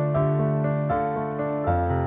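Instrumental music: sustained keyboard chords over a held bass note. The chord changes about a second in and again near the end, where a lower bass note comes in.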